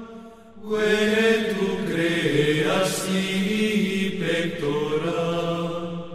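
Chanted singing: long held vocal notes in phrases a second or two long, with a short break near the start and a fade-out near the end.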